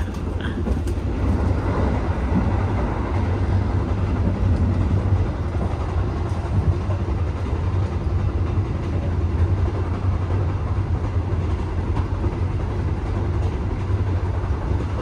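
Steady low rumble of a moving passenger train, heard from inside the carriage as it runs along the rails.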